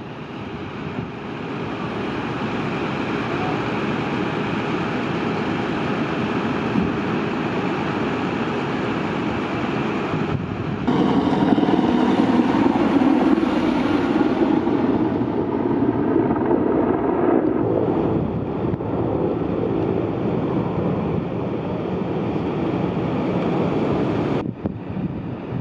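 Steady rushing outdoor noise of wind and running vehicle engines, broken into several stretches by sudden changes. A louder, deeper rumble takes over about eleven seconds in and lasts some six seconds.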